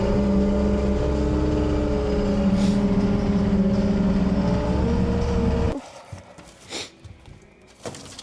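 Skid steer engine running steadily, then shut off abruptly near the end, followed by a few light clicks and knocks.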